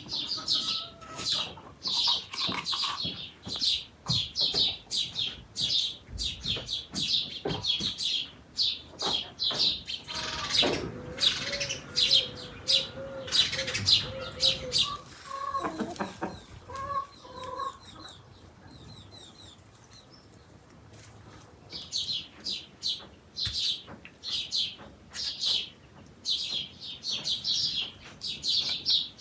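Small songbirds chirping in quick, irregular notes. About a third of the way in, a hen clucks in a run of short, evenly spaced notes for several seconds. The birdsong drops away briefly past the middle, then resumes.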